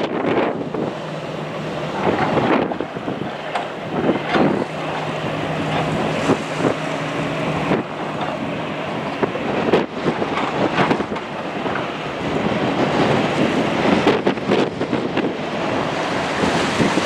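Wind buffeting the microphone in irregular gusts over the steady noise of an Airbus A321-200's CFM International jet engines as the airliner taxis along the runway.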